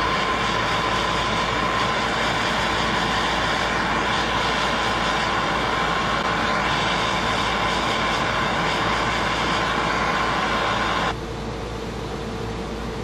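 Handheld MAP-gas torch burning with a steady rushing hiss, cutting off about eleven seconds in and leaving a fainter low hum.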